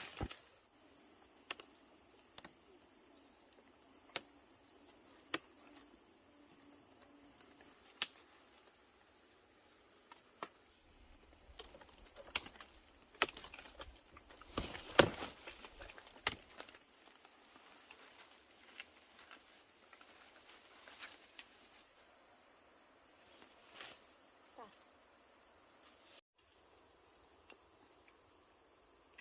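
Insects, such as crickets or cicadas, droning steadily in a high thin whine, with scattered sharp clicks and knocks throughout and a brief cluster of louder knocks about halfway through.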